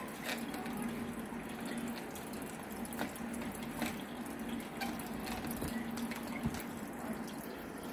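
Water trickling and splashing steadily into a fish tank from its filter return, over a steady low hum.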